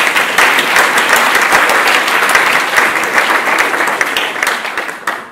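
Audience applauding: dense clapping from many hands that tails off and stops near the end.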